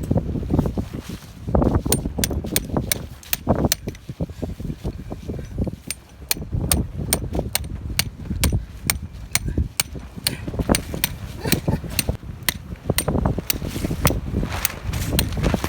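Strong gusty wind rumbling on the microphone, with a rapid, irregular series of sharp clicks, about two or three a second.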